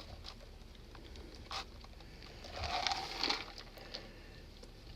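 Faint sounds of a person drinking coffee from a cup: a short click about a second and a half in, then a louder stretch of sipping and swallowing around the middle.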